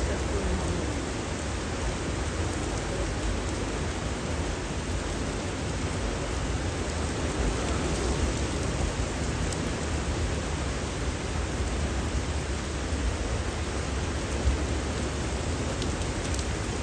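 Steady rain falling on leaves: an even hiss with a low rumble underneath that barely changes.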